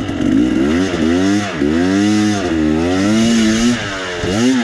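Two-stroke enduro dirt bike engine revving up and down under load on a steep hill climb, the revs rising and falling several times as the rider works the throttle, dropping briefly near the end before picking up again.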